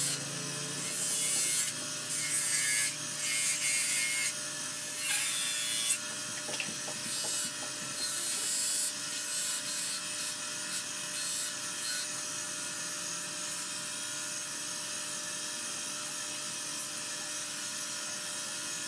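Hand work in a car's engine bay: scraping and rubbing of a hand tool and parts against metal and wiring, coming in irregular spurts for the first several seconds, then settling to quieter, steadier handling noise.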